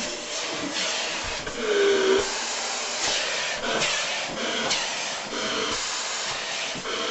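Dyson vacuum cleaner running with suction through its hose nozzle as it is drawn over a long-haired cat's fur, the hiss of the airflow shifting in tone as the nozzle moves. A short low tone sounds about two seconds in.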